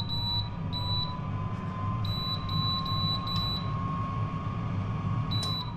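Control-panel beeps of a COSORI air fryer oven as its timer-down button is tapped: about seven short, high-pitched beeps at uneven intervals, with a last one near the end. Beneath them a steady low hum and a faint whine from the running oven's fan.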